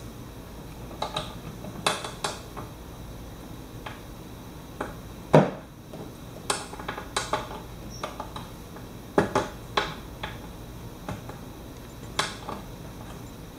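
Irregular light clicks and small knocks from hands pulling tubing off the fittings inside an ozone generator's metal case, with one sharper knock about five seconds in.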